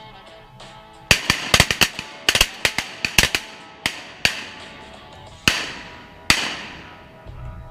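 Volley of shotgun blasts from several hunters: a rapid cluster of shots starting about a second in, then a few more spaced shots, the last two with a trailing echo. Background music plays underneath.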